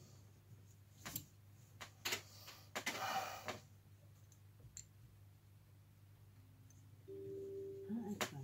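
Small steel parts of a SIG Sauer 516 rifle's bolt carrier group clicking as they are handled on a cloth: a few sharp metallic clicks and a short sliding rustle about three seconds in. A faint steady tone comes in near the end.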